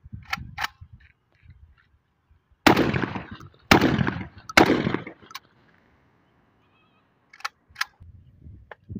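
Three shots from an AK-pattern 12-bore shotgun, about a second apart, each with a long echoing tail. A few light metallic clicks from handling the gun come before and after the shots.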